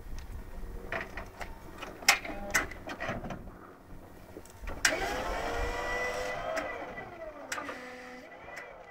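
Toyota forklift's hydraulic lift motor whining, rising and then falling in pitch for a couple of seconds about halfway through, as it moves the load on its forks. Before it, a few sharp knocks.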